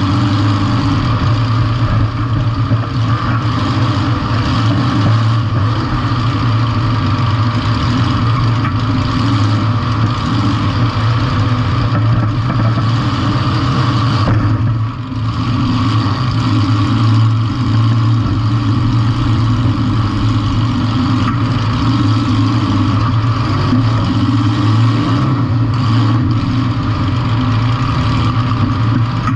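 Compact demolition derby car's engine running loud and steady, with small changes in revs and a brief drop about halfway.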